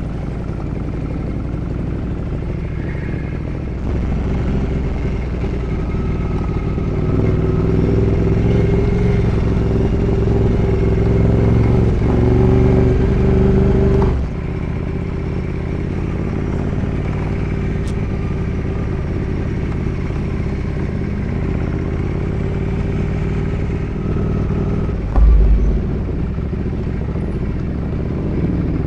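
Ducati Multistrada 1200S's L-twin engine running under way. It pulls louder from about four seconds in, stays strongest until about fourteen seconds, then drops off suddenly and runs on steadily. There is a brief low thump about twenty-five seconds in.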